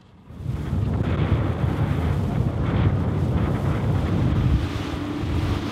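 Wind buffeting the microphone on a small fishing boat under way, with the boat's engine running and water rushing underneath. The noise starts suddenly about half a second in and then holds steady.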